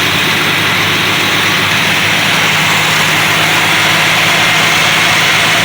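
Mopar 383 big-block V8 idling steadily just after starting on a fresh set of NGK iridium spark plugs, running smoothly, or as the owner puts it, purring like a kitten.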